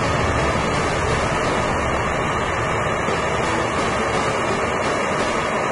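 Hand-held gas brazing torch burning steadily on a copper pipe joint: an even rushing noise of the flame with no breaks.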